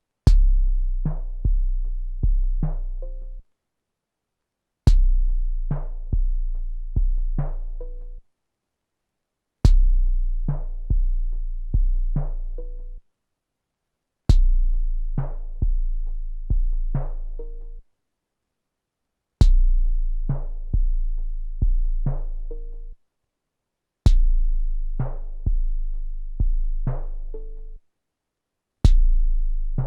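A drum pattern played back from a 12-bit SP-1200 sampler: a phrase of deep, booming kick drums, opened by a sharp click, lasting about three and a half seconds and repeated about six times with a short silence between repeats.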